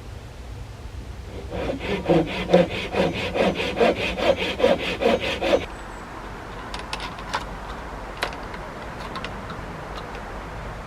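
Hand saw cutting through wood in quick back-and-forth strokes, about three a second, for about four seconds. A few light clicks follow once the sawing stops.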